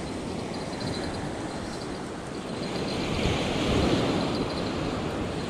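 Surf washing on the shore, with wind on the microphone; a wave swells and washes in about three seconds in.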